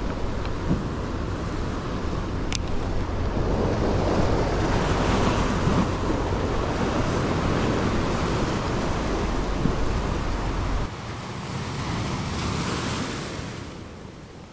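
Sea surf washing against shoreline rocks, swelling and ebbing, with wind buffeting the microphone until the wind rumble cuts out about eleven seconds in. A single sharp click sounds about two and a half seconds in.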